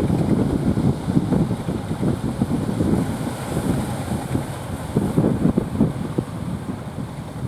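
Strong wind buffeting the microphone: a loud, uneven rumbling noise that rises and falls in gusts.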